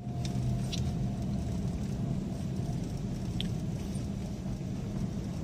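A car rolling off with a steady low rumble and a faint thin whine over it. This is the noise of a car driven off after days parked with the handbrake on, which the mechanic puts down to dirty rear brake shoes, the dirt stuck to the brake drum.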